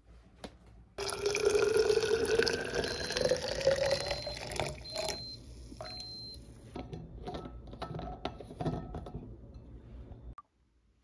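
Coffee poured into a Hydro Flask stainless-steel insulated bottle, its pitch rising steadily as the bottle fills. After that come a string of light clicks and knocks as the bottle and its plastic lid are handled and the lid is put on.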